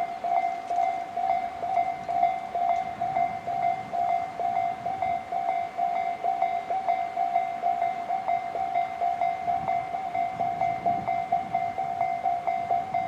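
Japanese electronic level-crossing warning bells of the Tobu 'Sound C' type, sounding from both sides of the crossing: a steady, rapidly repeated ding.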